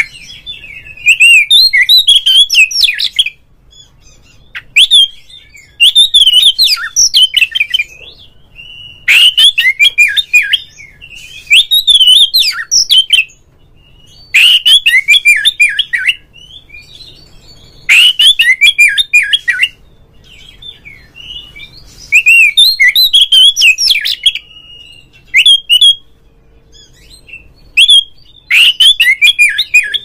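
Male Oriental magpie-robin singing loudly in bursts of rapid, varied whistled notes. Each phrase lasts one to two seconds, with short pauses between.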